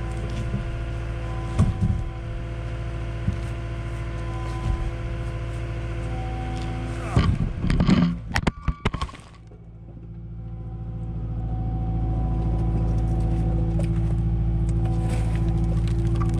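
Heavy equipment diesel engine running steadily, with sharp knocks and clattering around seven to nine seconds in; the engine sound then drops briefly and rises to run louder.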